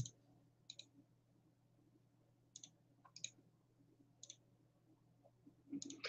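Near silence with about five faint, scattered clicks.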